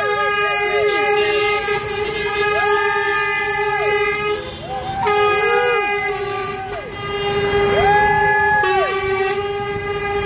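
Truck air horns sounding from a passing lorry convoy: a steady horn chord held throughout, with another horn blasting three times, each blast about a second long, rising in pitch as it starts and sagging as it stops.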